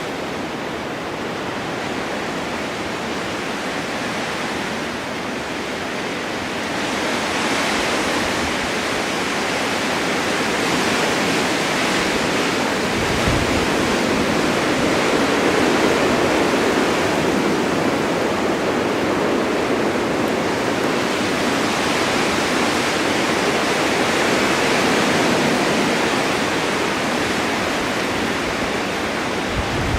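Blizzard wind blowing snow, a steady rushing noise that swells in a gust about a quarter of the way in and stays strong. Two brief low thumps, about halfway and at the end.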